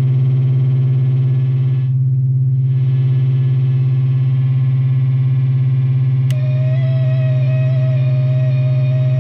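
Electro Faustus EF109 Drone Thing oscillators sounding a steady, buzzy low drone. About two seconds in, its upper overtones briefly dull. About six seconds in, a click is followed by a second, higher steady tone joining the drone as another oscillator is switched on.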